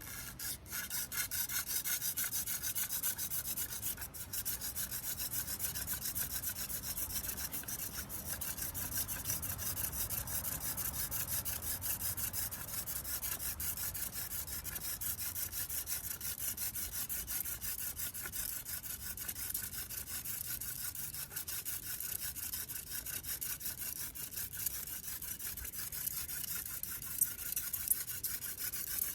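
Hand drill friction fire: a cattail spindle spun back and forth between the palms, its tip grinding into a velvetleaf stem hearth board. The sound is a steady, fast rubbing that starts suddenly and keeps up without a break.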